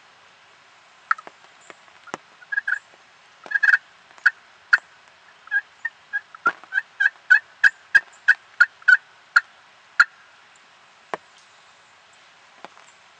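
Turkey yelping and cutting: a string of short, sharp notes, scattered at first, then a fast even run of about three a second, ending with a couple of single notes.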